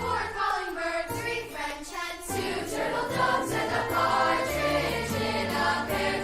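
A student choir singing with instrumental accompaniment.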